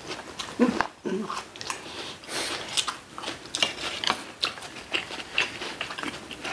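Close-up chewing and eating sounds: irregular wet mouth clicks and smacks as people eat.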